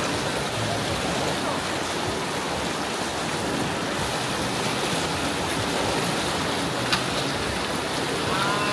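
Steady rush of fast-flowing water, with a single sharp click about seven seconds in.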